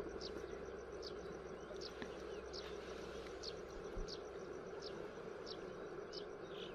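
Quiet outdoor ambience: short, high-pitched falling chirps repeat a little more than once a second over a steady low hiss.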